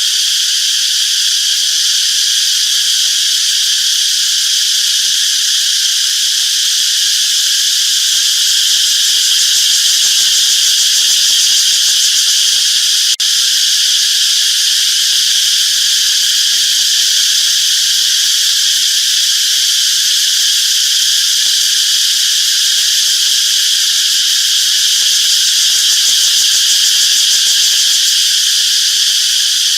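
A steady, loud, high-pitched chorus of insects buzzing without a break.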